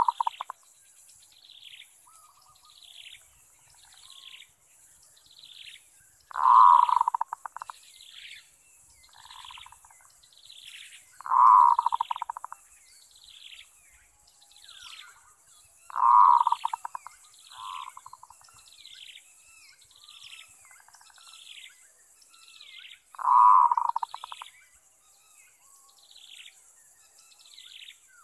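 Zebra dove cooing: a short burst of rapid staccato coos about every five seconds, with two bursts close together in the middle. Between the bursts a second bird keeps up a steady run of thin, falling chirps, over a constant high insect buzz.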